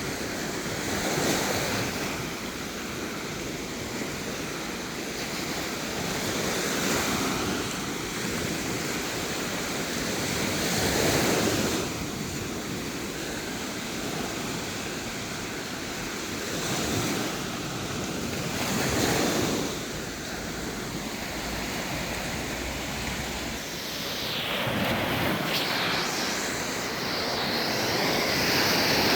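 Sea waves washing onto a beach, the surf swelling and falling back every few seconds, with wind on the microphone.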